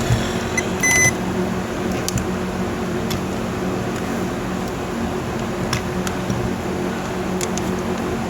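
A short electronic beep about a second in, like a multimeter's continuity beeper while checking a circuit for shorts, over a steady low hum with a few light clicks.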